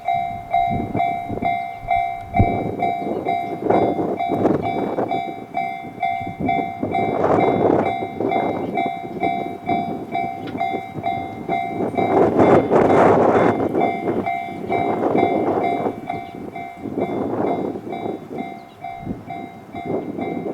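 Japanese level-crossing warning bell ringing in an even, repeating ding-ding throughout, while a train runs through the crossing, its noise swelling and fading in waves and loudest just past the middle.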